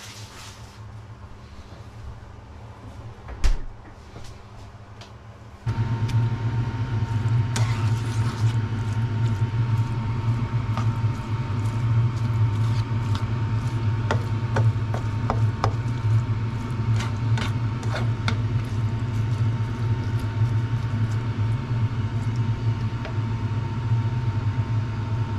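Sliced onions and bacon frying in a pan, turned with a spatula that scrapes and clicks against it, over a steady low hum. The frying starts abruptly about six seconds in; before that there is only quiet room tone with a single knock.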